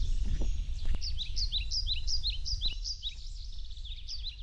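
Small birds chirping: a rapid run of short, rising chirps, several a second, starting about a second in, over a steady low rumble.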